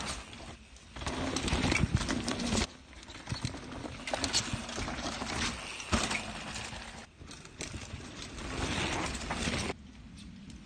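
Mountain bikes rolling over a rough dirt forest trail, in three spells of rattling, knocking and rushing noise. The last spell cuts off suddenly near the end into a quieter background.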